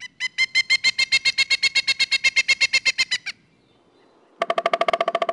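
Two runs of rapid, evenly pulsed electronic beeping: a higher-pitched run for about three seconds, then after a short pause a lower-pitched run starting near the end.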